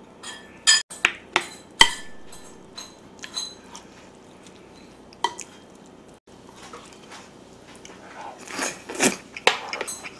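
A rice bowl knocking several times against a plate as cooked rice is tipped out of it, then a spoon scraping and stirring the rice into soy sauce on the plate, growing busier near the end.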